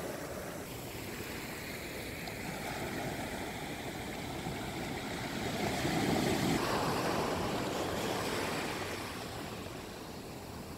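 Sea surf washing up the shore, a steady rush of breaking waves that swells to its loudest about six seconds in and then eases off.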